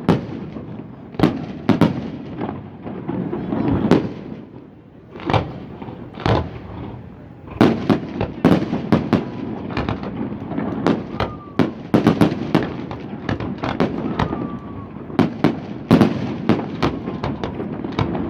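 Fireworks display: aerial shells bursting in a rapid series of sharp bangs, thickening into a dense barrage about halfway through, with a couple of faint whistles among them.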